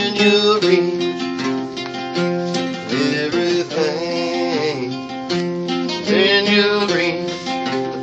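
Acoustic guitar music: a tune picked and strummed on steel-string acoustic guitar, with some notes bending in pitch.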